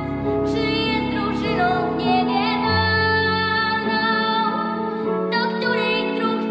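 A girl singing solo over an instrumental backing track, holding long notes with vibrato.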